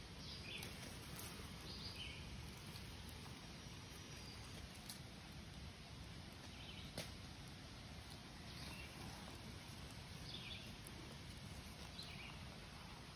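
Faint, steady wash of a small woodland stream, with scattered faint bird chirps and a single small click about seven seconds in.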